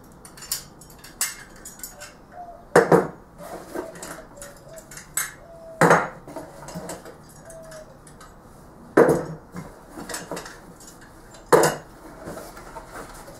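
Four metal retractable caster brackets set down one by one on a wooden tabletop: a loud metal clunk about every three seconds, with lighter clinks and rattles in between.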